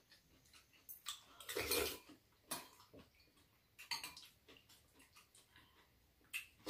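Metal spoons and chopsticks clicking and clinking against ceramic soup bowls during a meal: a handful of separate sharp clicks, with a longer, noisier sound about a second and a half in and a louder click at the very end.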